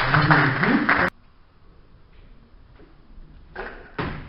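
Clapping and a voice, cut off abruptly about a second in. Then a quiet hall, and two short thuds near the end as a lifter catches a barbell in the squat.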